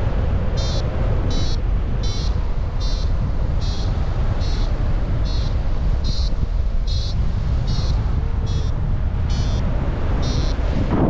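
Paragliding variometer beeping in a steady series, about five short beeps every four seconds, over heavy wind noise on the microphone. The repeated beeping is the vario's climb tone, the sign that the glider is rising in lift.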